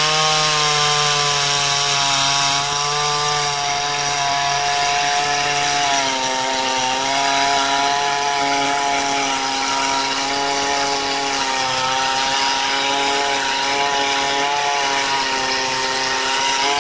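DevonPro 22" 58cc two-stroke chainsaw running at full throttle while cutting down into a tree stump. The engine note is steady and dips slightly about six seconds in as the saw loads in the cut.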